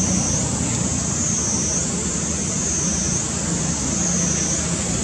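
Steady outdoor background rumble with a high buzzing tone that swells and fades about every second and a half.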